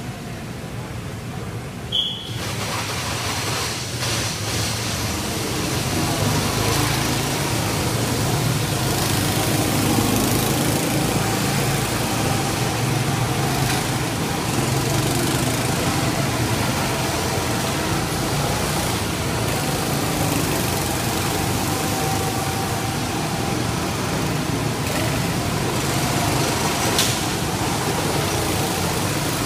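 Several go-kart engines running as the karts circle a slick track, a steady drone. A short high beep sounds about two seconds in, after which the drone grows louder.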